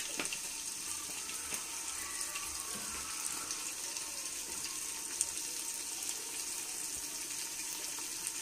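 Minced beef (keema) frying in ghee in a pot, a steady sizzle with a few faint pops. Its cooking water has dried off, so the meat is now browning in the fat.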